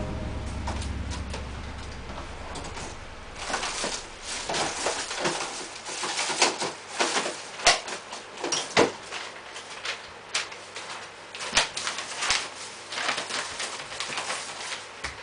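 Irregular knocks, scuffs and rustles of a person moving about on a tiled floor. A low drone fades out over the first few seconds.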